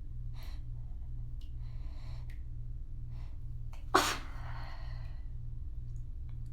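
A person sneezing once, loud and sharp, about four seconds in. It comes after a few short catching breaths as the sneeze builds, the release of a fit that had been held back.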